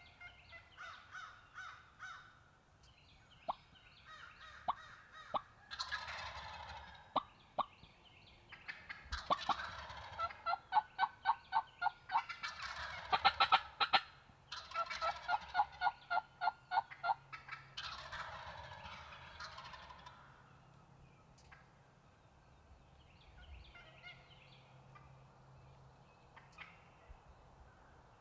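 Wild turkey gobblers in strut gobbling again and again, each gobble a short rattling burst. Between them run long strings of quick, evenly spaced yelping notes, about four a second. The calling is loudest in the middle and fades out near the end.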